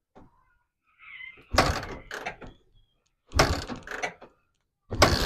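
Three kicks on a Suzuki motorcycle's kickstarter, about every one and a half to two seconds. Each one turns the engine over briefly without it catching. The engine is hard-starting from lost compression and has just had its carbon deposits cleaned.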